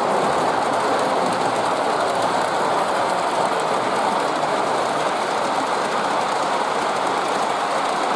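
G scale model steam locomotive and passenger cars rolling past on the track, a steady running rumble without a marked beat.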